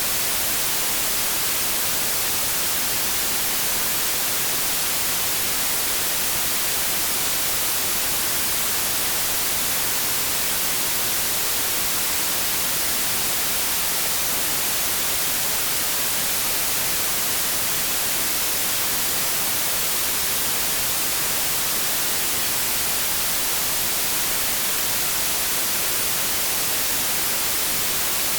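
White noise: a steady, unchanging hiss, bright rather than deep.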